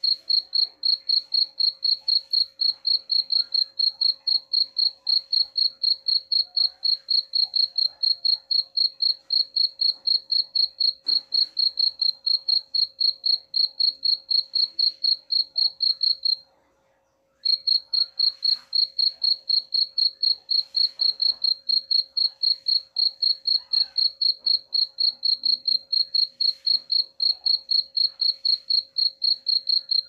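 A cricket chirping in a steady, fast rhythm of about three high-pitched chirps a second. It stops for about a second just past the middle, then starts again at the same pace.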